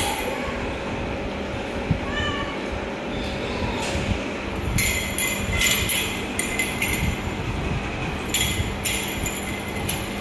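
Kitten meowing: one short, high meow about two seconds in, among bursts of scratchy noise.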